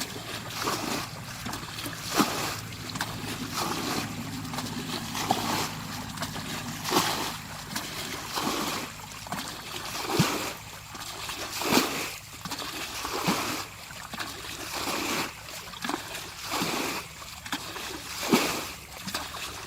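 Water splashing and sloshing in repeated irregular strokes, roughly one every second or two.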